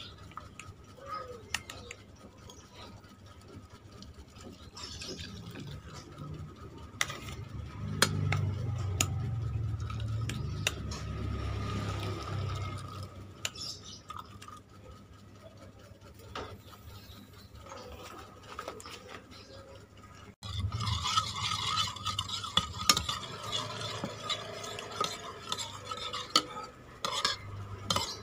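Saucepan and metal spoon clinking and knocking as instant noodle soup is poured from the pan into a bowl. About two-thirds of the way through, a spoon stirs in the bowl with a quick run of scraping and clinks.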